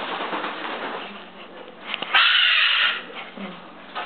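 Goffin's cockatoo giving one loud, harsh screech about two seconds in, lasting a little under a second.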